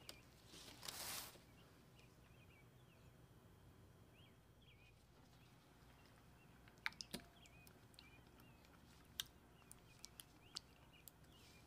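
Mostly near silence with faint bird chirps throughout. A soft cloth rustle about a second in as a kitchen towel is drawn over the bread, then a few light clicks in the second half as yogurt is spooned from a small glass dish into a glass bowl.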